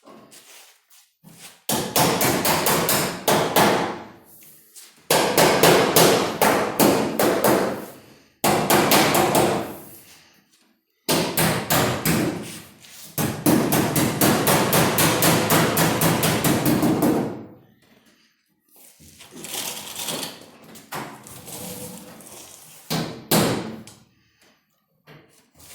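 Hammer tapping sheet metal on a car's quarter panel in rapid, steady runs of strikes lasting several seconds each, working the panel to lie flat for welding. Near the end come a few quieter, scattered taps and one single harder blow.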